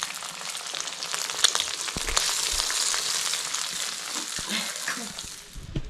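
Pot of noodle soup at a hard boil over a wood fire, a steady sizzling hiss with scattered small crackles.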